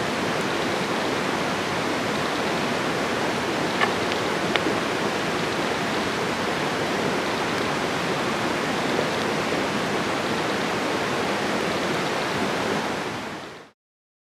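Steady rushing noise with two faint ticks about four seconds in, fading out to silence shortly before the end.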